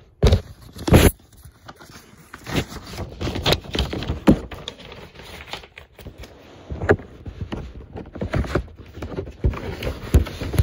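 Handling noise close to the microphone: irregular knocks, taps and scrapes as objects are moved about, with two louder knocks about a third of a second and one second in.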